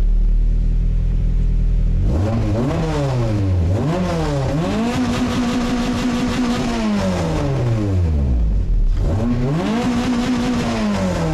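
Honda H23 four-cylinder engine in a 1992 Prelude running just after a start. It idles, then is revved: two quick blips, then a rev held for a couple of seconds that falls back to idle, and a second held rev near the end.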